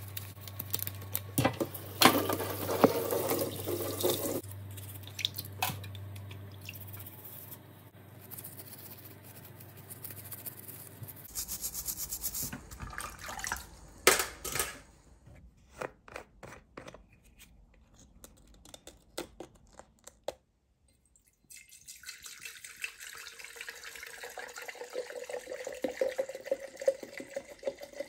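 Water running and splashing in a stainless-steel sink while a plastic basket holder is scrubbed, with knocks and clatters against the sink. After a brief pause near the end comes a steady sound of liquid pouring and filling.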